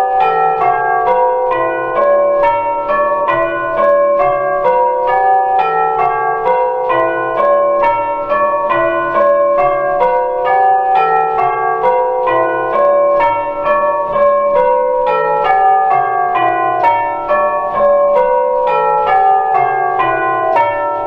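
A set of eight brass tubular bells made by Danks Foundry, struck one after another in an even, unbroken stream of a few notes a second and ringing changes, each note ringing on under the next.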